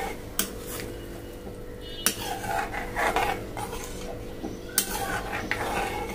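A metal spoon stirring watery masala gravy in a metal kadhai, scraping and sloshing, with a few sharp clinks against the pan.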